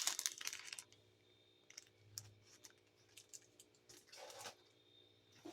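Faint handling noise from packaged plastic hair clips: a brief crinkle of plastic packaging at the start, then scattered light clicks and another short rustle about four seconds in.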